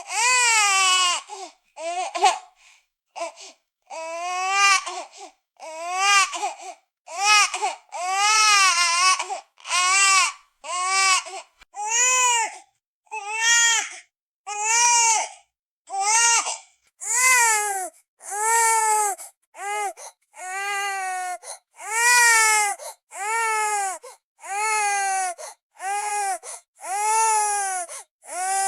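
A baby crying in a steady run of wails, about one a second, each rising and then falling in pitch, with short pauses for breath between them.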